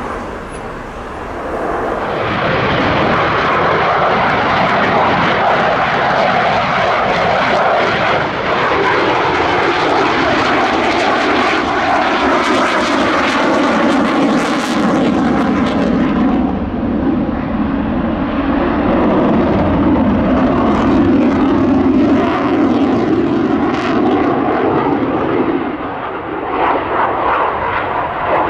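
Saab JAS-39C Gripen's single Volvo RM12 turbofan, a loud jet whine and rumble that swells about two seconds in. Through the middle of the pass its whining tones slide steadily down in pitch.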